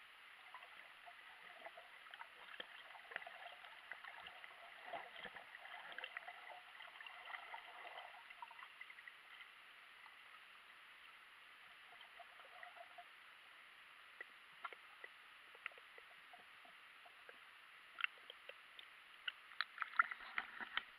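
Faint, muffled underwater sound of lake water heard through a GoPro's waterproof housing: a steady hiss with scattered small clicks and crackles, busier in the first part. Near the end a cluster of sharper, louder clicks and splashes as the camera comes up to the water's surface.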